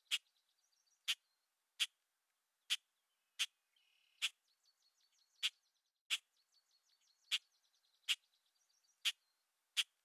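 Natural ambience of small animal calls: a sharp click repeated about once a second at uneven gaps, about a dozen times, over faint, fast, high chirping trills.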